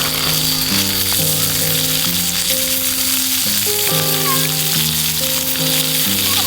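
Food sizzling loudly in a hot pan, the sizzle starting suddenly as it goes onto the hot surface, with background music playing steadily.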